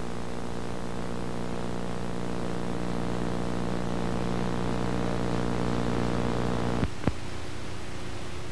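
A steady low hum with many overtones over a hiss. About seven seconds in come two sharp clicks, after which the hum drops away and the hiss carries on.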